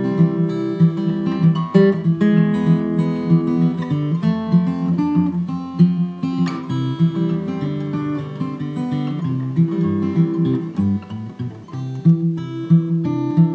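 Background music: acoustic guitar picking and strumming chords at a moderate, even pace.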